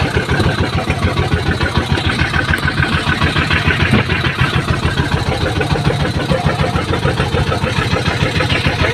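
Small boat engine running steadily with an even, rapid pulse.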